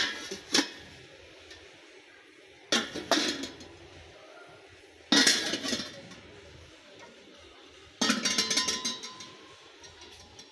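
Nonstick pans and a kadai clanking together as they are picked up and handled. There are four bouts of sharp metallic knocks with a short ring: right at the start, about three seconds in, about five seconds in, and about eight seconds in. The last is a quick run of clatters.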